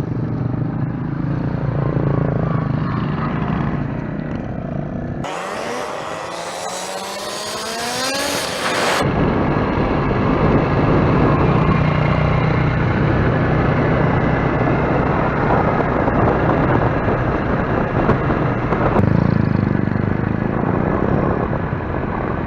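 Motorcycle engine running while riding, with rushing noise over it. The sound changes abruptly a few times. Between about 5 and 9 seconds in, the engine pitch rises as it accelerates.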